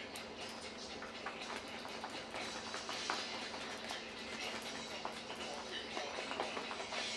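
Natto being stirred fast with chopsticks in its plastic tray: many quick, irregular clicks and taps of the chopsticks against the tray.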